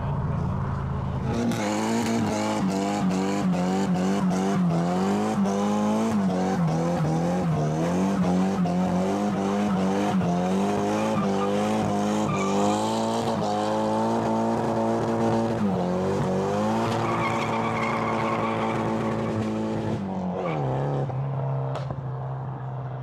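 Car doing a burnout: its rear tyres spin and squeal on the road while the engine is held at high revs, dipping and rising over and over as the throttle is worked. About 20 s in the revs fall away and the engine settles to idle.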